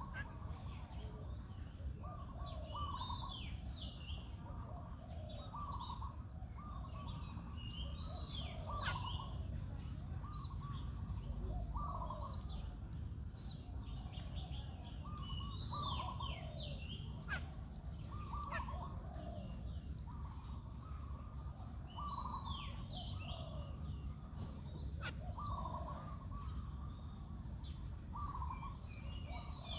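Birds calling over and over in short phrases of chirps and down-slurred whistles, one every second or two, over a steady low outdoor rumble.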